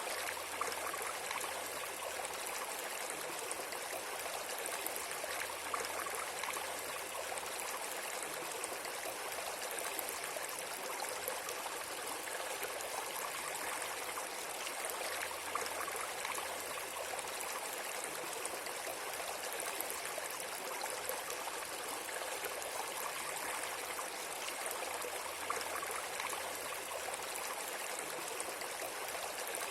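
Steady running water, a stream trickling without a break.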